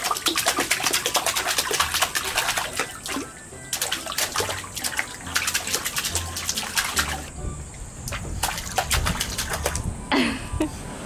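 Hands slapping and splashing the water of a shallow inflatable paddling pool in quick repeated splashes. The splashes come in runs with short pauses between them.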